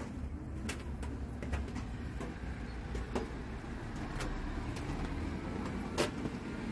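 City street ambience: a steady low rumble of road traffic, with scattered light clicks.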